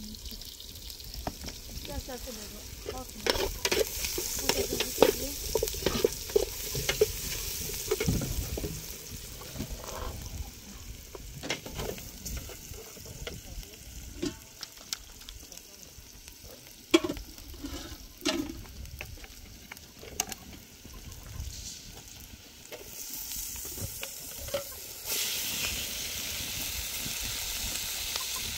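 Food frying in a pan while a utensil stirs it, clacking and scraping against the pan. A steady sizzle swells near the end.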